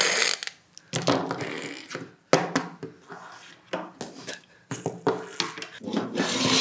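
A brittle cracker being handled and broken on a wooden tabletop: a string of short, dry cracks and taps at irregular intervals. A burst of loud laughter comes at the very start.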